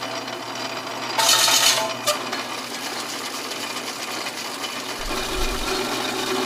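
Old metal-turning lathe running, a twist drill in the tailstock chuck boring into a spinning metal workpiece: a steady mechanical whir with several steady whining tones. A loud harsh burst lasts under a second about a second in, followed by a click, and a low rumble joins about five seconds in.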